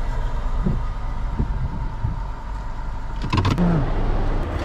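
Steady low rumble of a car running at low speed, heard from inside the cabin. About three seconds in, a quick cluster of sharp clicks as the driver's door is unlatched and opened.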